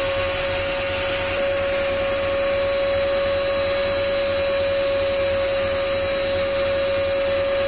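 Rotary jewellery-cutting handpiece motor running at a steady speed, a constant whine with a hiss over it.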